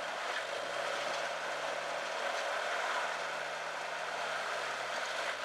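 Suzuki Jimny Sierra's engine running at low revs while crawling over rocks, its pitch dipping and rising a few times, under a steady hiss.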